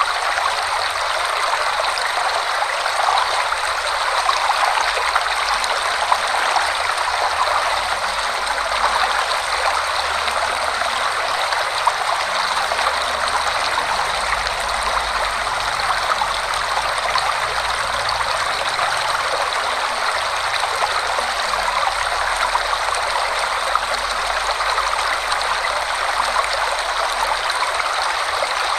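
Forest waterfall flowing fast: a steady, unbroken rush of water.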